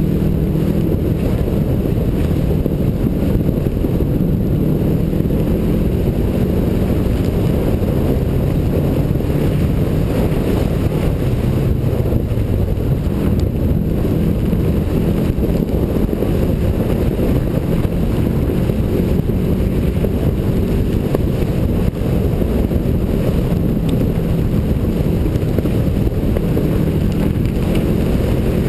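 Turbocharged all-wheel-drive Subaru rally car's engine driving hard on a dirt stage, its pitch rising and falling with the revs, heard from outside the car with wind buffeting the microphone.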